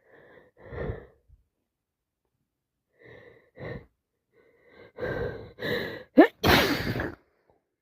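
A woman with a congested head cold takes a few short breaths, then a couple of louder gasping in-breaths that build up to a loud sneeze about six and a half seconds in.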